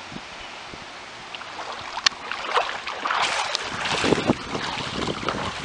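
Wind on the microphone, then from about two seconds in, irregular sloshing and splashing of floodwater as someone wades through it, louder through the middle.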